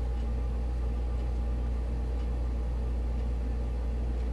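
Steady low background hum with no other sound.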